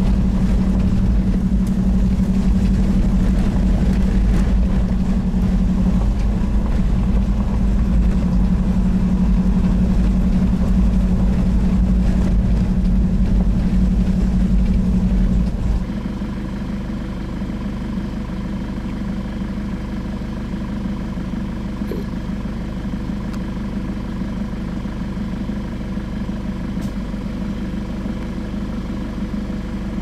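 Car engine and road noise while driving: a steady low rumble that drops abruptly about halfway through to a quieter, even engine hum.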